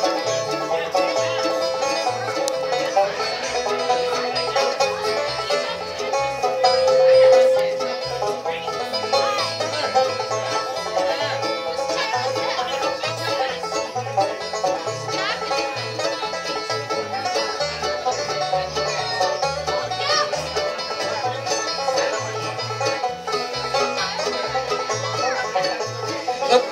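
Live bluegrass band playing an instrumental intro on banjo, mandolin, acoustic guitar, fiddle and electric bass, with a steady plucked rhythm and a long held melody note about seven seconds in.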